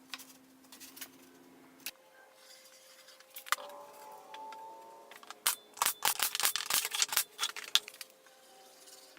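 A quick run of sharp clicks and knocks from workshop handling, loudest about halfway through, over quiet background music with held notes.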